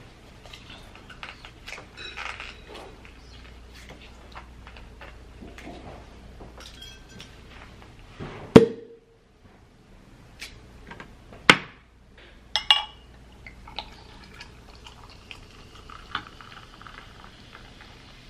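Hands handling a drink bottle and glassware, with several sharp clicks and clinks, the loudest a little over halfway through. Near the end, sparkling fruit juice is poured from the bottle over ice into a wine glass, with a soft fizzing hiss.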